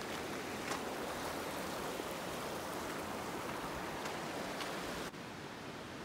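Steady outdoor rushing noise with a few faint, scattered crunches of footsteps on a gravel dirt road. About five seconds in it drops to a quieter, even hiss.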